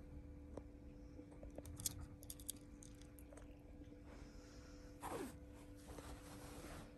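Faint licking and nibbling clicks of a British Longhair cat grooming its fur, then a brief rustle about five seconds in, over a steady low hum.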